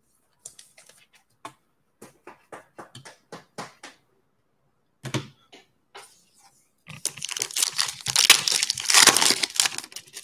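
Light clicks and taps of trading cards being handled, then from about seven seconds in a Panini Mosaic trading card pack's wrapper crinkling loudly as it is torn open.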